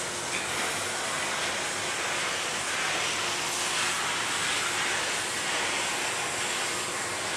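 Steady hiss of background noise with a faint low hum, even throughout with no distinct events.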